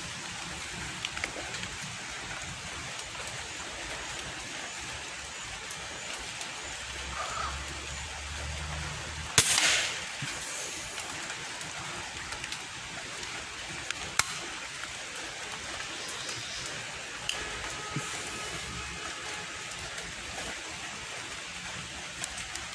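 A single shot from a Daisy 880 multi-pump pneumatic air rifle, one sharp crack about nine seconds in. A steady hiss runs underneath, with a few faint clicks.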